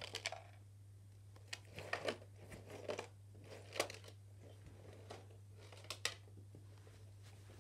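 Small plastic LEGO pieces being handled: a handful of short, sharp clicks spread over several seconds, with light rustling between them.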